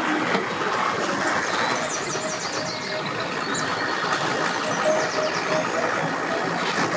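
Mercury outboard motor on a bass boat idling as the boat manoeuvres slowly, a steady running din, with short runs of high chirps about two seconds in and again near five seconds.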